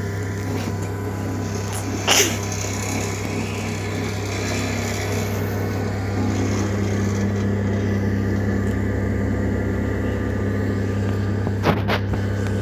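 J.W. Ratcliffe and Sons electric potter's wheel running with its wheel head spinning, the motor giving a steady hum. Two brief knocks, one about two seconds in and one near the end.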